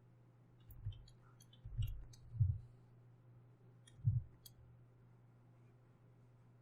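Scattered computer mouse clicks, with a few short, soft low thumps, the loudest about two and a half and four seconds in, over a steady low hum.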